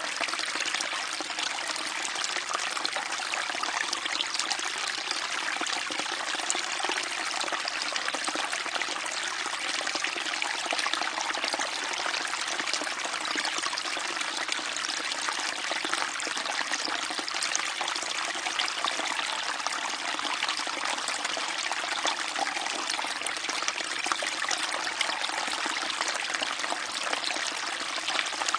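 Small stream trickling and babbling steadily over stones, a continuous bright splashing without pauses.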